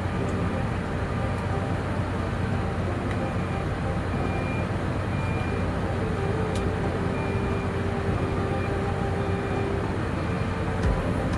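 Heavy machinery's diesel engine running steadily, with faint short high tones coming and going over it.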